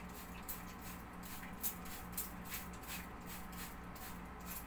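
Frosted privacy window film being pressed and smoothed by hand on wet glass, making short, sharp, irregular clicks about twice a second, over a steady low hum.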